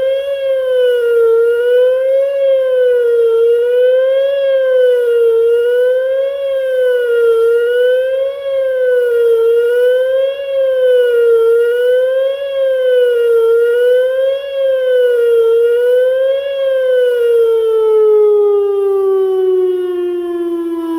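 Whelen WPS 2910 electronic outdoor warning siren sounding the attack signal: a loud tone wavering up and down about once a second. Near the end the wavering stops and the pitch winds steadily down as the test signal ends.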